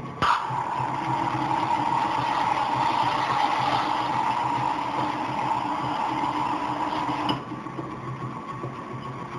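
Liquid nitrogen hissing as it is dispensed into a stand mixer's bowl by a Bayard Nitro Mixer: the hiss starts suddenly just after the start and cuts off sharply about seven seconds later. Under it is the steady hum of the mixer running.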